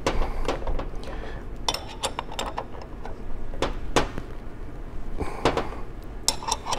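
Irregular metal clicks and clinks, some in quick little runs, from a wrench turning a nut splitter as its chisel is worked into a nut.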